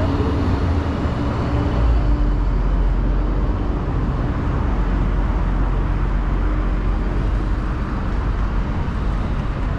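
Road traffic on a busy city street: cars and a city bus running past, a steady rumble of engines and tyres.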